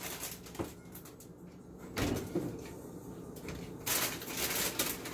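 Kitchen handling noises: a couple of short knocks in the first second, then two brief spells of rustling and clatter, about two seconds and four seconds in, as food and containers are moved about on the counter.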